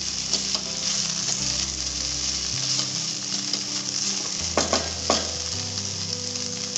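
Sliced okra sizzling in oil in a kadai as a wooden spatula stirs it, with two short scrapes of the spatula against the pan about four and a half and five seconds in.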